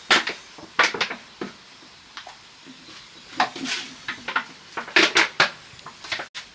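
Dishes clinking and clattering as they are handled, in a string of irregular knocks. The loudest come just after the start and again about five seconds in.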